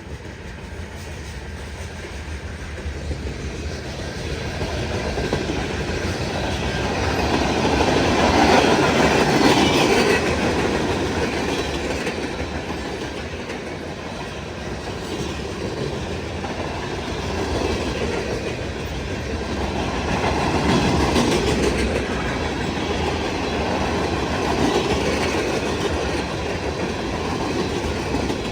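Freight train rolling past, its wheels clattering over the rail joints. The sound builds over the first few seconds and swells and eases again as the cars go by.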